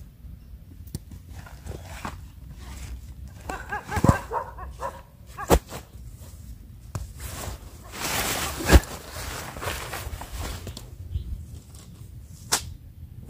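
Dogs barking a few times about four seconds in, among rustling and sharp knocks as a tent bag and camping gear are handled, with a burst of rustling about eight seconds in.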